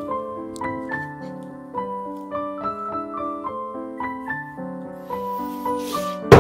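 Piano background music, a steady run of notes. Right at the end comes a sudden loud thump as the filled springform cake tin is knocked down on the wooden table.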